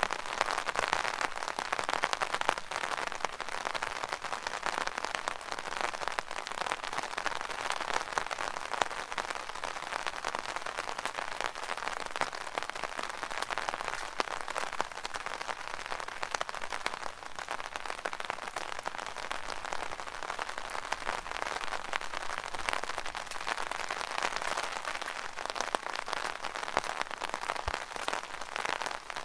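Rain falling on an umbrella: a steady, dense patter of many small drop hits at an even level.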